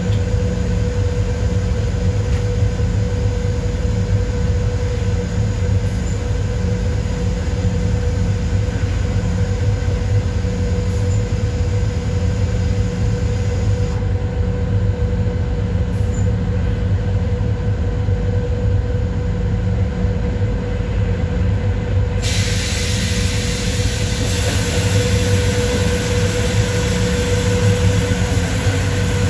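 PKP Cargo ET22 electric locomotive running with a freight train, heard from the cab: a steady rumble of wheels on rail and machinery with a held tone. About 22 seconds in the noise turns brighter and hissier as the train runs into an underpass.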